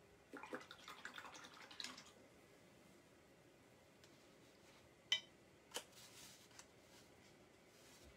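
A paintbrush swished and rattled in a water cup for about two seconds, then two sharp clicks a little over five seconds in, the first with a brief ring.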